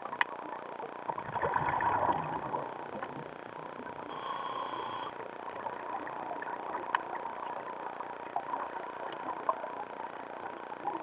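Scuba regulator breathing heard through an underwater camera housing. Exhaled bubbles gurgle about one to two seconds in, and a short hiss of inhalation comes around four seconds in, over a steady muffled underwater hiss with a few sharp clicks.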